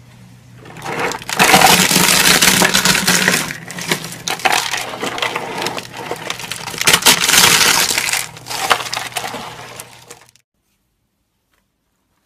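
Hands crushing a packed mound of dry, curled soap shavings, a dense crackling crunch. It comes in two loud spells and stops abruptly about ten seconds in.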